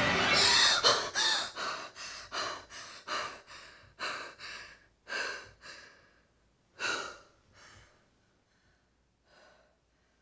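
A woman panting and gasping in fright, quick breaths at first that slow, grow softer and fade out over about eight seconds.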